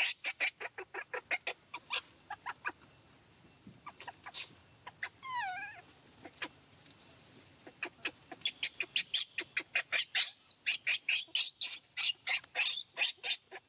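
Animal calls: quick runs of short, sharp chirps or clucks, several a second, with a quieter stretch in the middle and one wavering call falling in pitch about five seconds in.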